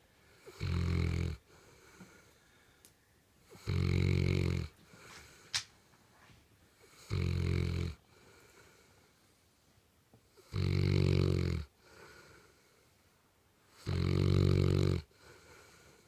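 St. Bernard snoring in her sleep: five loud snores about three and a half seconds apart, each lasting about a second.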